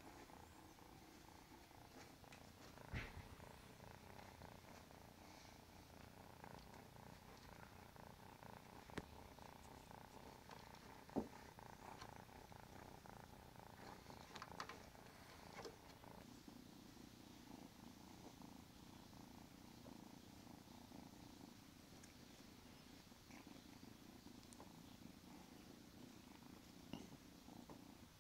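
Kitten purring faintly and steadily, with a few sharp clicks, the loudest about eleven seconds in.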